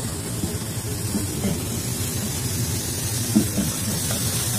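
Steady low drone of a vessel's machinery with a hiss over it, and a single knock about three seconds in.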